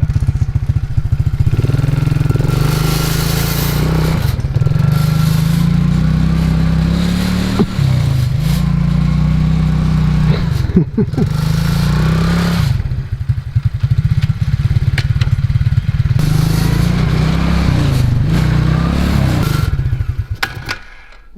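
ATV engine running and repeatedly revving up and easing off while the vehicle pushes a homemade snow plow, with spells of hissing scrape. The engine sound dies away near the end.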